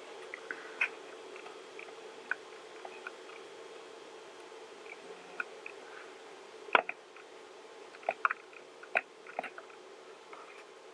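Quiet room tone with a faint steady hum and scattered small clicks and ticks, the sharpest about seven seconds in and a few more close together soon after.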